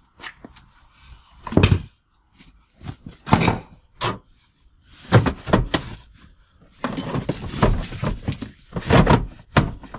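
Clunks and thumps of a Polaris RZR bucket seat being handled and set down onto its mounting base, sharp knocks of plastic and metal. There is a louder knock about two seconds in, several more after that, and a scraping, rustling stretch a little after the middle.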